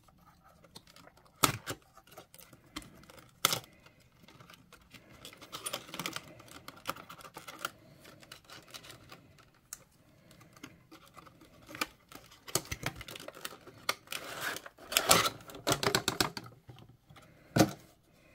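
Small cardboard box being opened by hand: flaps and tabs flexing, scraping and rustling, with irregular sharp clicks and taps, a cluster of them near the end as the inner card tray comes out.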